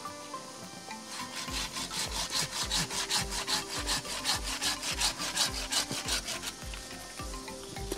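Hand saw cutting through a Sancang bonsai branch with quick, regular strokes, starting about a second and a half in and stopping shortly before the end.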